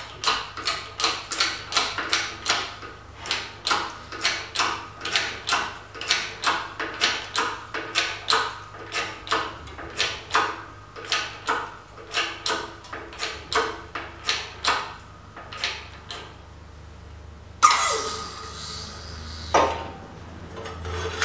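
Hydraulic bottle jack of a 20-ton shop press pumped by hand, a regular clicking of about two strokes a second as the finger brake bends 3/16-inch steel plate. About 17 seconds in comes a sharp clank and a falling whine lasting about two seconds, ending in a second clank, as the press is released.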